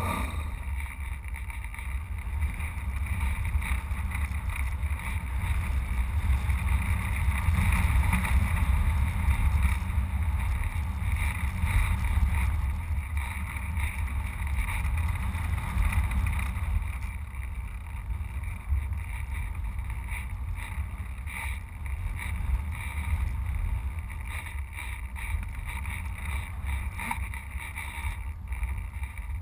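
Airflow rushing and buffeting over a camera mounted on top of an electric RC sailplane as it glides with its motor off.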